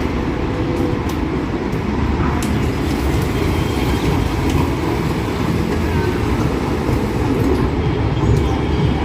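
Steady low rumble of city street traffic with heavy vehicles running.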